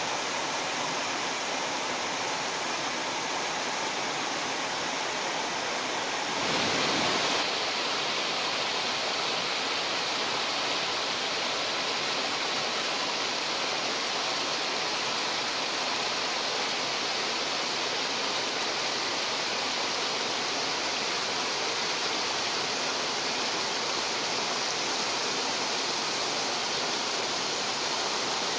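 Shallow mountain river rushing and splashing over a rocky bed and small cascades, a steady rush of water that grows briefly louder about six seconds in.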